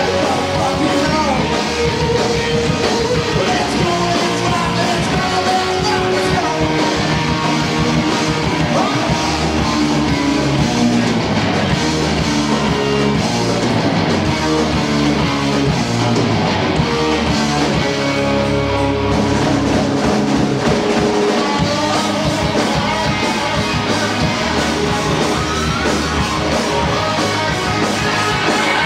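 Live rock band playing: electric guitars, bass and drum kit, with singing.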